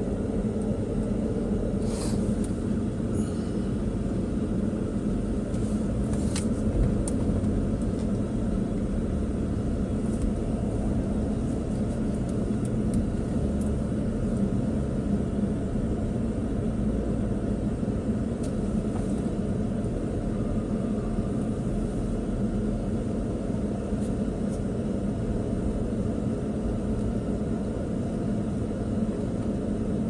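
Steady engine and road rumble of a moving truck, heard inside its cab, with a few light clicks about two and six seconds in.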